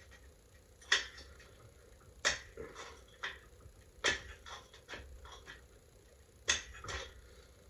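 Manual caulking gun being worked while silicone caulk is squeezed into a plastic bucket: sharp, irregular clicks and knocks, about eight in all, with the loudest about a second in, near the middle, and about two-thirds of the way through.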